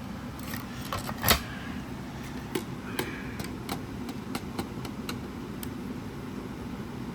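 Small clicks and taps of speaker parts and screws being handled during disassembly, with one louder knock about a second in, over a steady low background hum.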